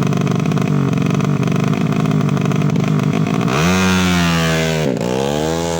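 Motorcycle engine through an aftermarket HMR racing exhaust, running with a rapid rasp, then revved up about three and a half seconds in, dipping briefly and rising again.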